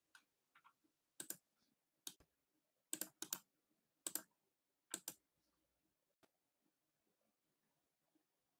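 A handful of short, sharp clicks at irregular intervals, two of them close together about three seconds in, over near silence.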